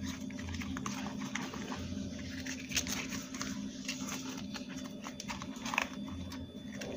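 Fresh green corn husks rustling and crackling as hands press them down over a stainless steel pot of corn, with scattered small clicks and a steady low hum underneath.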